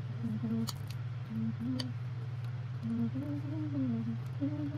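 A low, wordless voice humming softly in short rising and falling phrases over a steady low hum, with two light clicks of a metal spoon against a glass bowl about a second apart early on.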